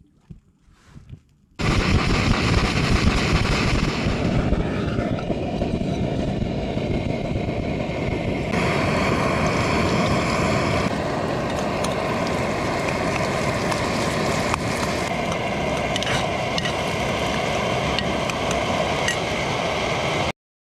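Loud wind and road noise while travelling, rushing steadily over the microphone. It comes in several cut-together stretches that start and end abruptly.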